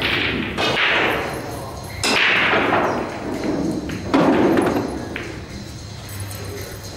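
Four loud knocks, each trailing off in a rattling, echoing tail: two close together at the start, one about 2 seconds in and one about 4 seconds in.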